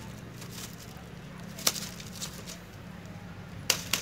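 Sharp metallic clicks and rattles of wire-mesh cage traps being handled with a metal rod: one about halfway through and two in quick succession near the end, with fainter ticks between, over a steady low hum.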